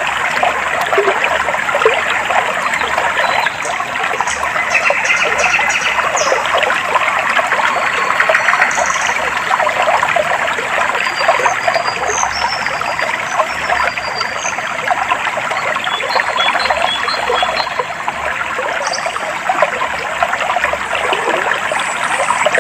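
Clear water of a stream trickling and babbling steadily, with short, high bird chirps scattered above it.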